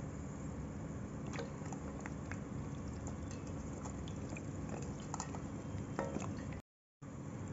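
Soaked lumps of multani mitti (Fuller's earth clay) squished and handled by hand in water in a steel bowl: scattered soft wet squelches and small clicks over a steady background hiss. The sound cuts out completely for a moment near the end.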